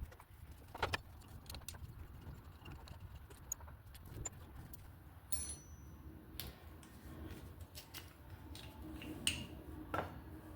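Scattered metallic clicks and clinks of hand tools at a motorcycle brake caliper as the brake pads are taken out, over a faint low hum.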